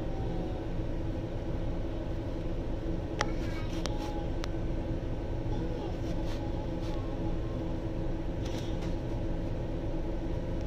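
Scania N280UD bus's diesel engine idling steadily at a standstill, heard from inside the lower deck, with a few short sharp clicks about three, six and eight seconds in.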